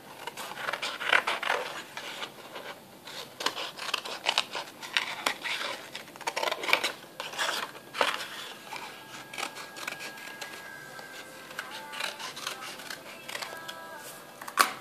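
Scissors snipping through thin card in a run of short, irregular cuts, thickest in the first half. Soft background music comes in about halfway through.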